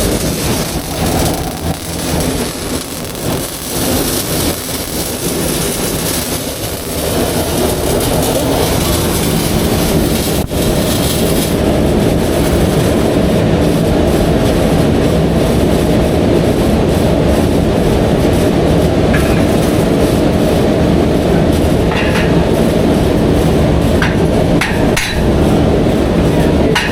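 A motor or engine running with a steady, unbroken drone; over the first several seconds a loud rushing hiss sits on top of it.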